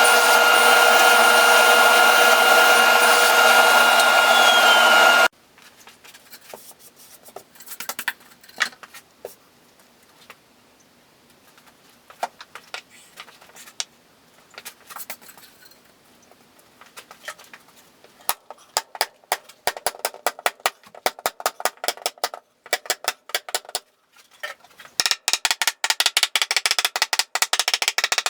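A power tool running steadily with a whine, stopping abruptly about five seconds in. Then come scattered knocks and clicks of work on wood, turning into rapid clicking in the latter part.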